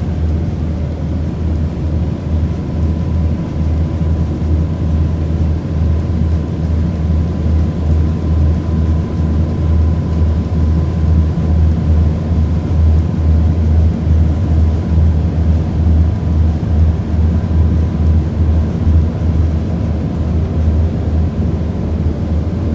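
Steady low engine drone with a faint high whine.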